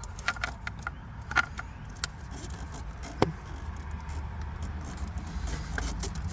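Plastic press-and-pull wiring connectors being unclipped from the back of a car radio: a scatter of short clicks and rattles, the sharpest about three seconds in, over a steady low rumble.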